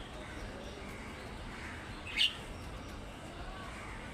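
Budgerigar giving a single short, sharp chirp about two seconds in, over low steady background noise.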